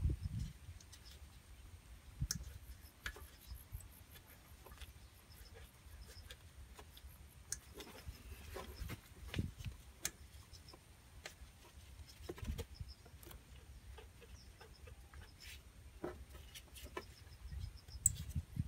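Faint clicks, knocks and rustling as a gloved hand handles a Honda Dio scooter's carburetor, a few of them a little louder, over faint high-pitched ticking or chirping in the background.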